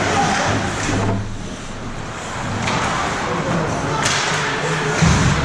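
Ice hockey play heard in an arena: several sharp cracks of sticks and puck, the strongest about four seconds in, and a heavy thud against the boards near the end, over a steady background hum of voices and the rink.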